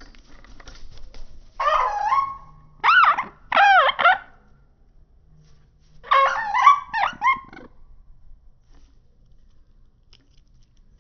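Animal calls: short, pitched cries that rise and fall, in three groups, about two seconds in, around three to four seconds in, and from six to seven and a half seconds in.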